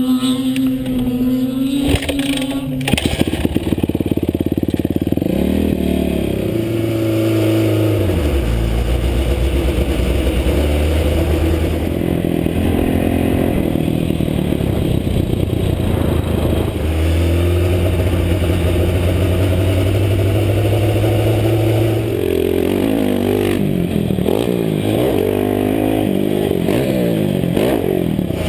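Dirt bike engine under way: it runs at a steady pitch, then about three seconds in it pulls away, climbing in pitch and dropping back at each gear change, with steady stretches at speed. Near the end the pitch wavers quickly up and down with the throttle.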